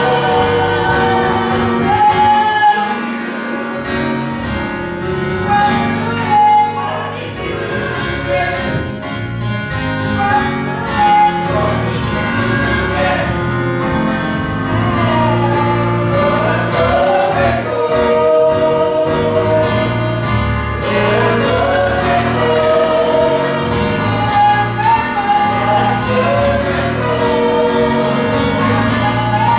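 A church choir singing a gospel song with instrumental accompaniment and a steady bass.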